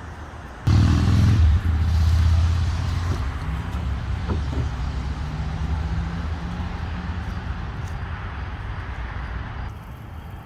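Powered drive motor of a wheeled home battery backup unit running as the unit drives itself under throttle. It starts suddenly about a second in as a steady low hum with a hiss, is loudest for the first couple of seconds, and stops near the end.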